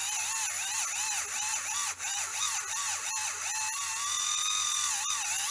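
Kemei electric callus remover running, its motor-driven abrasive roller grinding hard, cracked skin on the ball of a foot; a high whine that wavers up and down in pitch.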